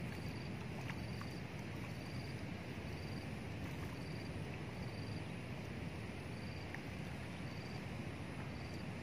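An insect chirping: a short, high note repeated about once a second over a steady low outdoor rumble.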